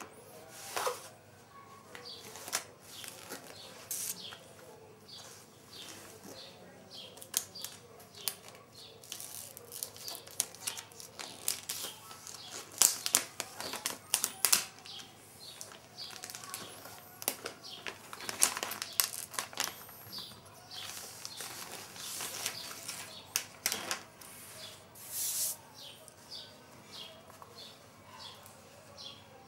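Irregular rustling, crinkling and light knocks of hands unwrapping and handling a 13-inch MacBook Pro and its packaging, busiest in the middle.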